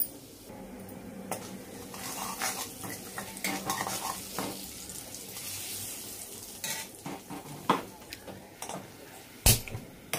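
Steel ladle stirring and scraping ground spices through hot oil in an iron kadhai, with clinks of metal on metal and a light sizzle; the burner is off so the spices don't burn. A sharper knock of the ladle on the pan comes near the end.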